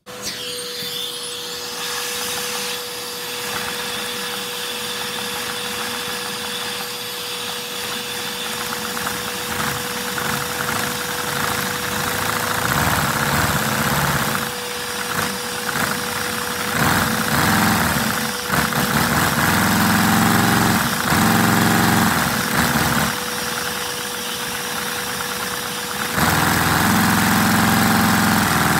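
Vacuum cleaner drawing air through a LEGO inline-four vacuum engine (Shared Crank Valve design) as it runs, the pistons and valves working in a 1-3-2-4 firing order. It starts with a steady whine, grows louder and rougher in the second half, and steps up again near the end.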